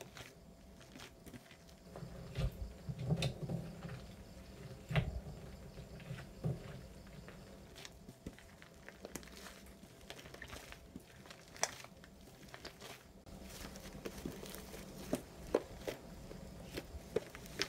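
Hands kneading and squeezing foamy slime, giving scattered soft crackles and little pops with a few duller squishy thuds.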